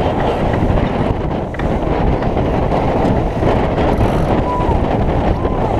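Strong wind buffeting the microphone of a camera mounted aboard a J/24 racing keelboat under sail, a loud steady rumble, with water rushing past the hull through choppy waves.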